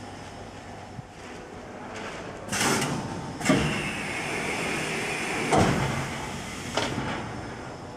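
Plastic hot plate welding machine for balance rings running through its cycle: a short hiss about two and a half seconds in, then three clunks of moving machine parts with a steady high hiss between them, over a constant machine hum.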